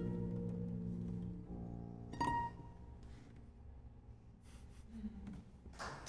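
Closing notes of a free-improvised duet for digital piano and 10-string guitar ringing out and fading away, with one high note struck about two seconds in. Applause begins just before the end.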